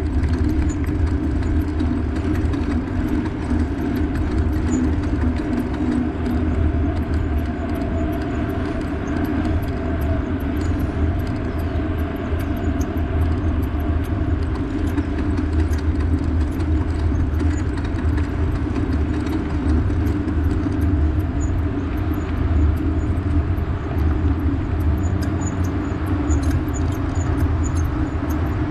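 Steady low rumble of a bike under way: wind and road noise, with faint quick ticking high up, more of it near the end.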